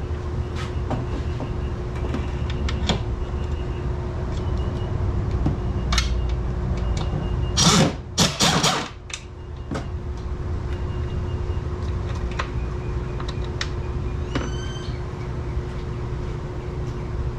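Hand tools clicking and clinking over a steady low workshop hum, with a louder scraping clatter about eight seconds in and a short squeak near the end.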